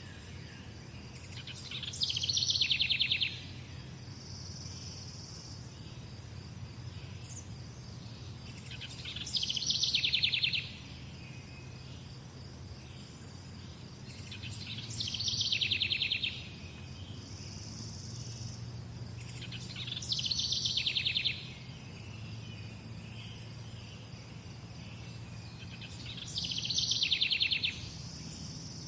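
A songbird repeating one fast trilled phrase that falls in pitch, five times, about every six seconds. Between its phrases there is a faint steady high chirring of insects and a low rumble.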